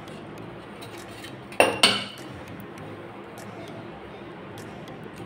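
Stainless steel idli plate clanking against a steel serving plate as steamed rice dumplings are turned out onto it: two sharp metallic clanks in quick succession about a second and a half in, ringing briefly, with a few faint clinks around them.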